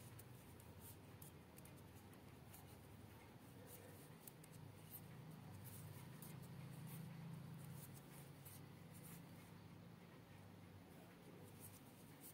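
Faint, irregular clicking and scraping of knitting needles working wool yarn, over a low steady hum.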